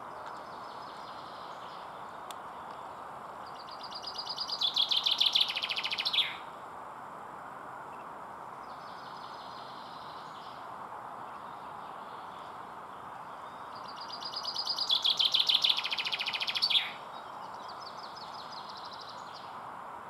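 Male common chaffinch singing twice, about ten seconds apart: each song is a rapid run of notes that grows louder and ends in a quick downward flourish. Fainter bird notes come between the songs, over a steady background noise.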